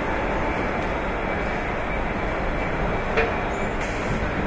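Steady din of a car assembly hall: machinery and conveyor noise, with one short sharp clack about three seconds in.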